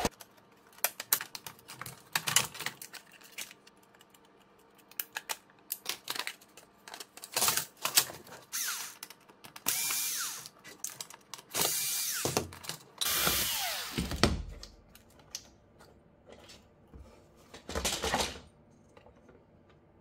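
Small cordless electric screwdriver running in about five short bursts, its pitch falling as it spins down, driving screws out of a Roomba's plastic housing. Before the bursts, light clicks and knocks of plastic parts being handled.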